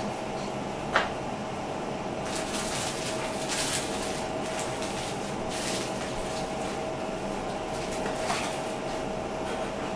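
Plastic food wrapping crinkling and rustling in the hands for a few seconds, with a sharp click about a second in. A steady appliance hum runs underneath.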